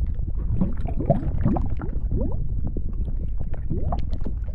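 Bubbling, gurgling molten-lava sound effect over a steady low rumble, with many short pops and glugs throughout.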